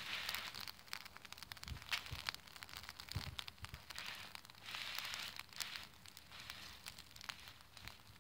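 Dry fallen leaves crackling and rustling as a cat shifts about underneath them: uneven bursts of crisp little snaps, heaviest at the start and again about five seconds in.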